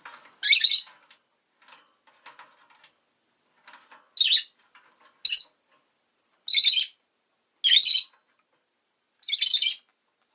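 Rosy-faced lovebird calling: six loud, short, shrill chirps spaced roughly a second apart, with softer chattering between the first and second calls.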